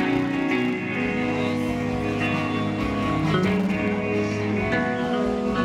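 Live rock band playing an instrumental passage: electric guitar chords over drums, recorded on a camera's built-in microphone.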